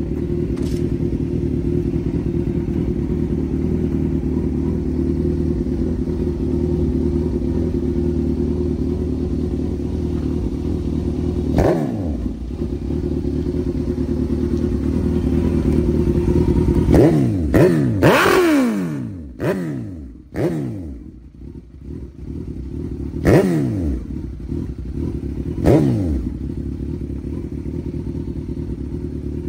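Suzuki GSX-R1000 sportbike's inline-four engine idling, with throttle blips. One rev comes about twelve seconds in, a quick run of several revs follows a few seconds later, and two more single revs come near the end. Each rev rises sharply and falls back to idle.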